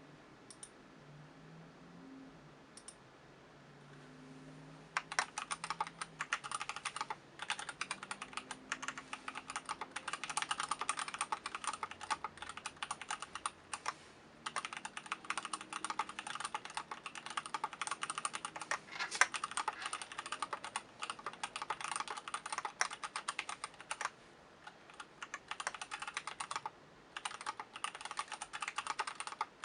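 Typing on a mechanical keyboard with stock, unlubricated 67 g C3 Kiwi switches, a Delrin plate and DSA keycaps in a stacked acrylic case. A fast, even run of keystroke clicks starts about five seconds in and breaks off briefly a few times. Before that there is only a faint low hum and two single key clicks.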